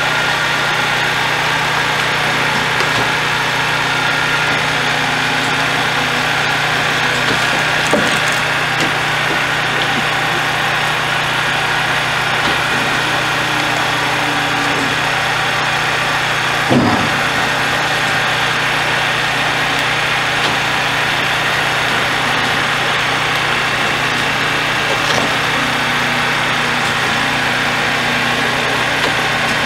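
Heavy diesel engine idling steadily, with one sharp knock about seventeen seconds in and a faint click around eight seconds.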